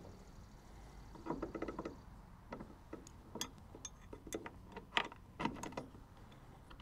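Light metallic clicks and clinks of quick-release pins being worked into a steel ladder mount bracket by hand: a run of them a little over a second in, then single irregular clicks.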